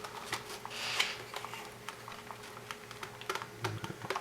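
Light clicks and taps of hard plastic parts being handled, the IDE ribbon cable and robot chassis pieces being positioned by hand, with a brief rustle about a second in. A faint steady hum runs underneath.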